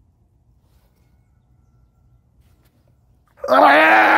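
A man's loud, drawn-out gagging groan that bursts out about three and a half seconds in, after a quiet stretch of chewing: a retching reaction to swallowing pig testicle.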